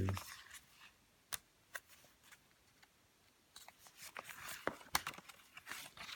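Pages of a paper instruction booklet being leafed through: scattered light clicks and rustles, busier in the second half.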